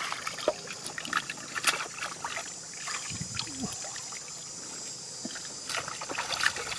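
Hands splashing and sloshing in shallow muddy water, with scattered small splashes and drips as catfish are grabbed from the mud.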